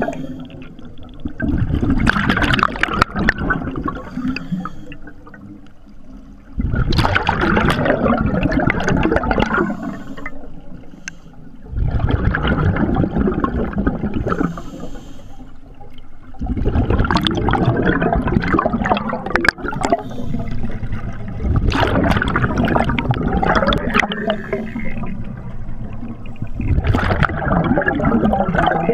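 Scuba diver's regulator exhaust bubbles, heard underwater: six long bursts of bubbling about five seconds apart, with quieter gaps between breaths.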